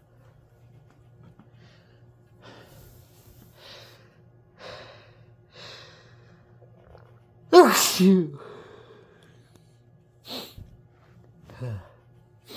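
A person takes a few catching breaths, then gives one loud, voiced sneeze about halfway through, followed by short sniffs or breaths. The sneezing comes from nasal congestion after exposure to flowers.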